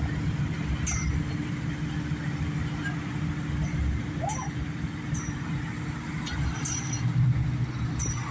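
Steady low engine rumble of cars, pickup trucks and a motorcycle driving past, swelling about seven seconds in, with short high chirps every second or so.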